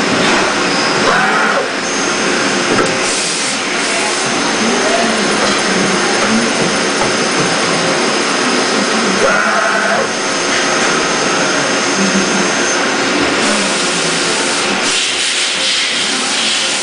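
Miyano ANC-35 CNC turning center running, a steady mechanical noise as its turrets move through a cycle, with a thin high whine for several seconds in the middle.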